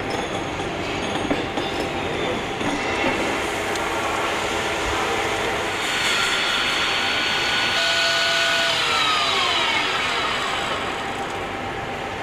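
Machine-shop noise: steady clatter and hum of running machinery. It gets louder about halfway in, and a machine's whine falls in pitch as it runs down.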